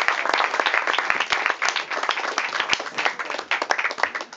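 Audience applauding, with dense clapping that thins out and fades near the end.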